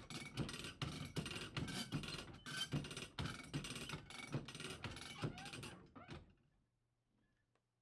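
A reed hook clicking against the dents of a loom reed as warp threads are drawn through it (sleying the reed), about three sharp clicks a second, fading out about six seconds in.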